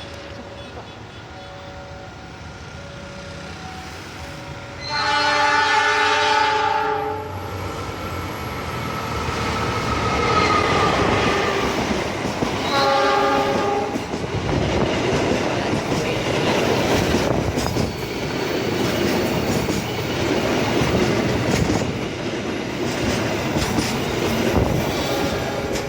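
Train horn blowing a long blast about five seconds in and a shorter one about eight seconds later as the KAI train passes, followed by the train's wheels clattering over the rails. A repeating two-tone beeping runs at first, before the horn.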